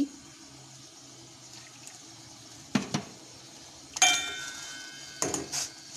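A steel ladle knocking against a steel cooking pot of boiling milk: two light clicks just before the middle, then a sharp knock about four seconds in that rings on for over a second, and a few more clinks near the end, over a faint steady hiss.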